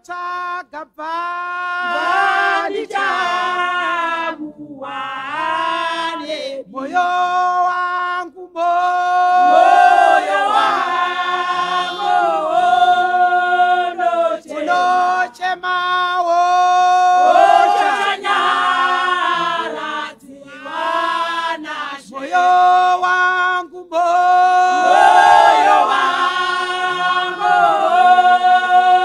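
A choir of many voices singing a hymn without instruments, in long held phrases broken by short pauses for breath.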